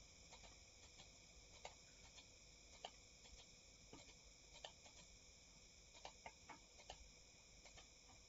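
Faint, irregularly spaced computer mouse clicks over near-silent room tone.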